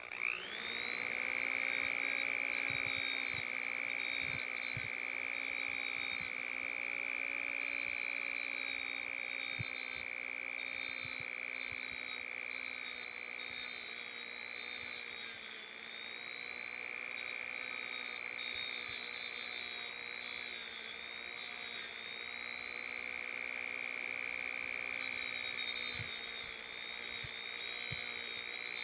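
Small high-speed rotary tool spinning up and running with a steady whine, its pitch dipping slightly now and then as it bears on the work, cleaning the anvil of a quarter-inch drive ratchet.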